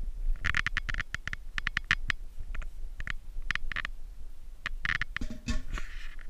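Cooking oil crackling and popping in a heating nonstick frying pan, in irregular bursts of short sharp pops.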